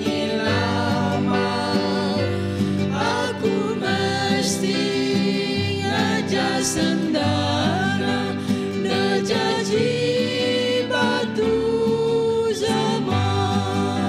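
A mixed group of four singers, two women and two men, sings a Christian song together in parts, accompanied by a strummed acoustic guitar.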